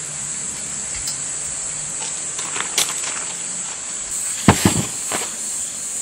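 Crickets chirring steadily in a high continuous trill. A few sharp clicks sound over it, the loudest a quick cluster of three or four about four and a half seconds in.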